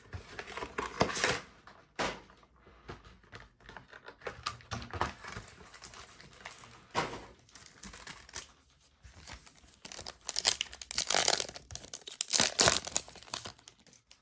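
Yu-Gi-Oh booster pack packaging being torn open and crinkled by hand, in irregular rustling spells, loudest about ten to thirteen seconds in.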